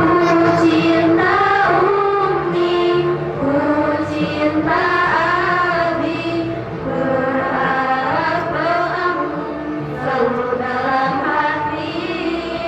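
A choir singing sustained, gliding notes over a steady low held tone.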